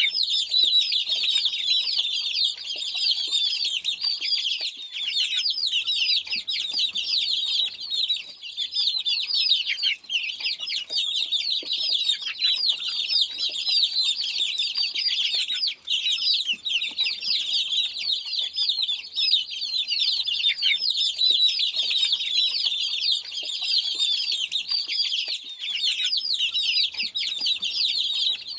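A group of chicks cheeping continuously: many overlapping high, short, mostly downward-sliding peeps.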